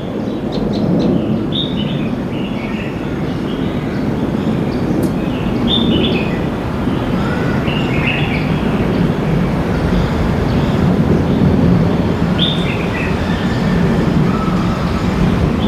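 Park ambience: birds calling with short chirps that fall in pitch every few seconds, and a quick run of ticking notes near the start, over a steady low rumble.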